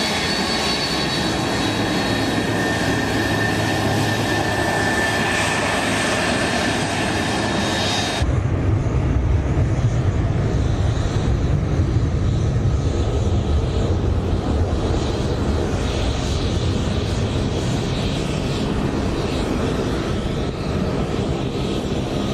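KC-10 Extender's three turbofan jet engines, first with a steady high whine as the tanker taxis close by; about eight seconds in the sound changes abruptly to a deep low rumble as it runs at takeoff thrust and climbs away.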